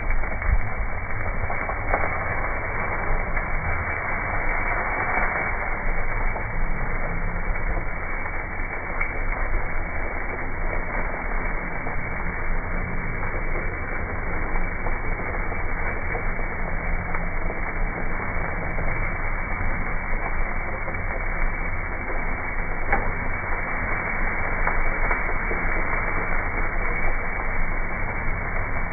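Fajita meat sizzling on the hot grates of a pellet grill, heard as a steady, dense crackle. It sounds muffled and slowed down, as from slow-motion playback.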